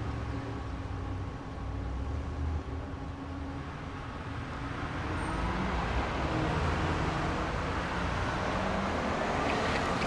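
Quiet suburban road ambience: a low, steady traffic rumble, then a car approaching, its engine and tyre noise growing louder from about halfway through.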